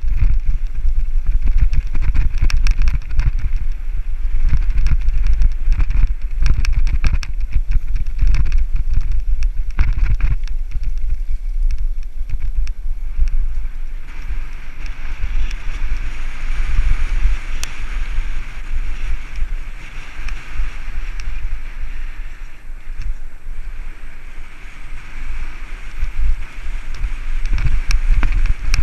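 Mountain bike descending a rough downhill trail: wind buffeting the microphone, with tyre noise and a dense run of clacks and rattles from the bike over rocks and roots, easing to a steadier hiss partway through.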